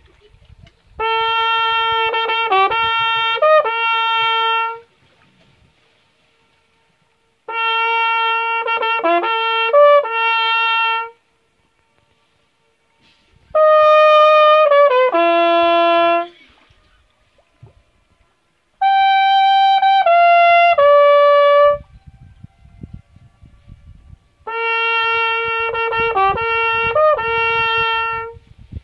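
Trumpet played in five short phrases of three to four seconds each, with pauses between them. The first, second and last phrases are the same tune, each a held note followed by a quick run of notes.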